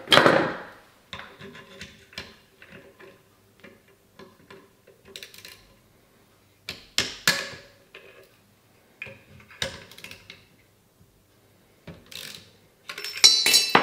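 Scattered clicks, clinks and knocks of a torque wrench and hex bit being handled and fitted to a rifle's action screws as they are undone, with a louder knock at the start and a busier run of knocks near the end.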